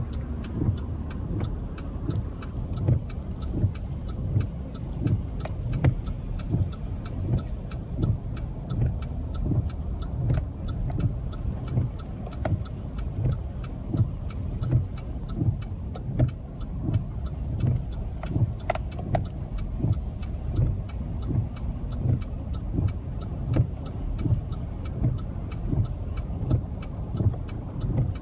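Rain falling on a car, with many sharp scattered drop hits over a constant low rumble and a regular low thumping about one and a half times a second.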